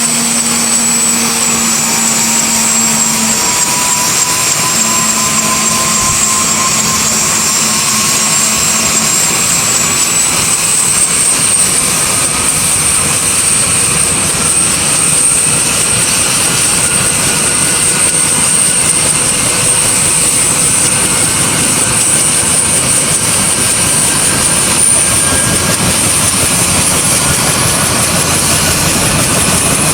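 UH-1H Huey helicopter's Lycoming T53 turboshaft engine and rotor running, with a high turbine whine that rises in pitch over the first ten seconds or so and then holds steady.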